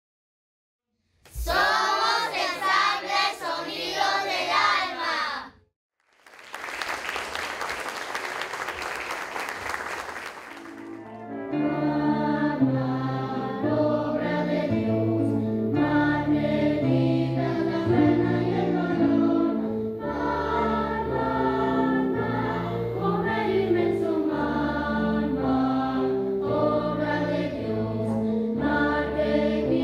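A choir singing sustained chords that change about once a second. Before it, a short sung phrase with vibrato, a brief silence, then a few seconds of rushing hiss.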